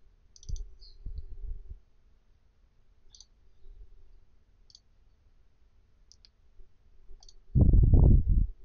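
Computer mouse clicks, single clicks spaced a second or more apart, with a few soft low thumps about a second in. Near the end there is a loud, low, muffled burst lasting under a second.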